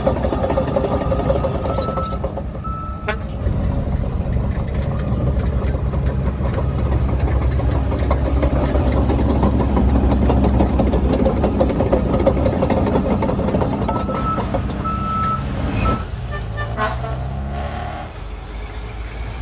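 Shantui DH17C3 Pro bulldozer's diesel engine running steadily while working, with its reverse alarm beeping in short runs about two seconds in and again around fourteen seconds in. Near the end the engine note drops and then rises again.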